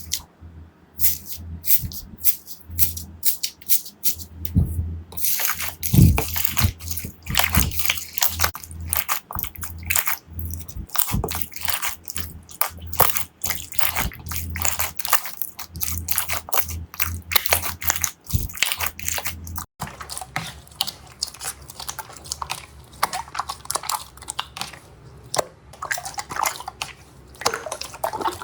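Slime being squeezed and poked by hand, making dense, irregular wet clicks, pops and crackles. The texture of the clicking changes about two-thirds of the way in.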